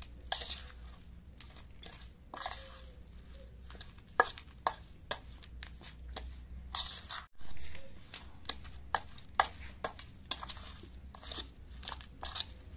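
Metal spoon scraping and clinking against a steel bowl while mashing and mixing boiled potato with spices: irregular sharp clinks with a few longer scrapes.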